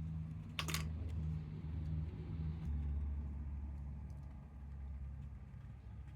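Low, steady engine rumble, like a vehicle running nearby, deepening about two and a half seconds in. A sharp click just under a second in and a few light taps from small handling noises sit over it.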